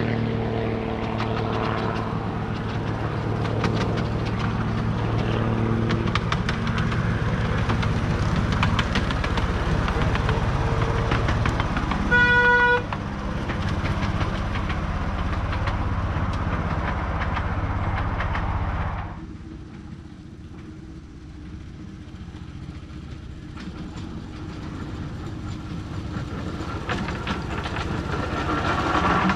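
Small miniature-railway locomotive engine running steadily as it hauls a passenger train, with one short horn toot about twelve seconds in. Then the sound drops, and a locomotive's engine grows slowly louder as it approaches.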